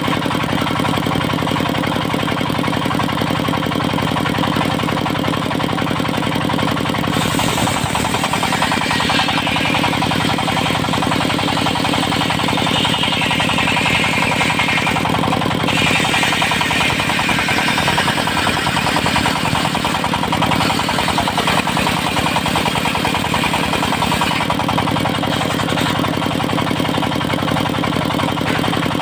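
Engine-driven circular sawmill: the diesel engine runs steadily while the big disc blade cuts through teak for most of the middle, a rough whine rising and falling across several passes, then the engine and free-spinning blade carry on alone near the end.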